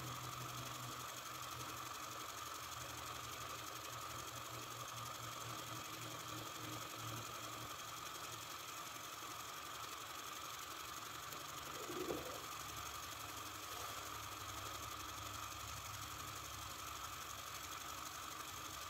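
Small Sterno-fired vertical oscillating toy steam engine running steadily, giving a fast, even mechanical ticking. There is one soft knock about twelve seconds in.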